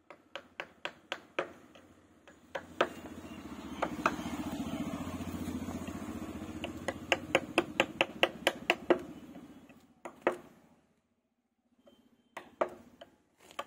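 Sharp, repeated knocks of a hammer striking a chisel into wood, about three to four a second, in runs. From about two seconds in, the hum of a passing motor vehicle's engine swells and then fades out before the last few knocks.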